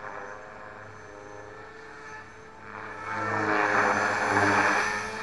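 Electric Align T-Rex 450 Pro RC helicopter with a DFC rotor head in flight: a steady motor and rotor whine with a rush of blade noise. It gets much louder about three seconds in as the helicopter comes close overhead.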